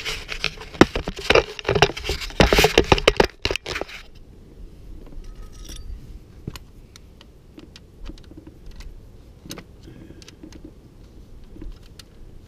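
Metal sockets and hand tools rattling and clinking together for about four seconds, then a few faint, scattered clicks.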